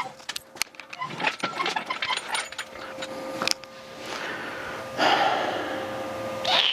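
Light metallic clinks and knocks of metal gear being handled, then a louder rushing noise about five seconds in.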